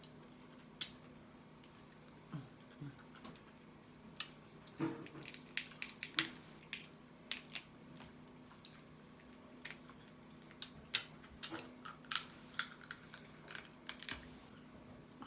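Eating crab and lobster up close: irregular sharp clicks and crackles of shell being picked apart, mixed with mouth sounds of chewing and smacking, over a faint steady hum.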